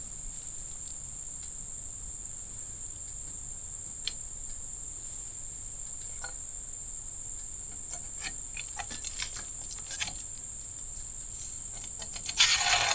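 Steady high-pitched insect trill from crickets or similar insects in the woods, unbroken throughout. Scattered faint clicks and knocks come through from the middle on, with a louder scraping rustle near the end as the stand is being strapped to the tree.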